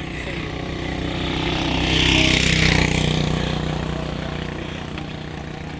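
Motor vehicle engine running with a steady low hum, the sound growing louder to a peak about two and a half seconds in and then fading.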